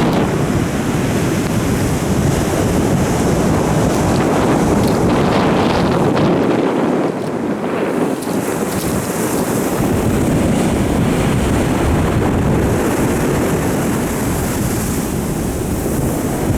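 Gale-force wind buffeting the microphone over heavy storm surf breaking on the shore. The wind lets up briefly about seven seconds in.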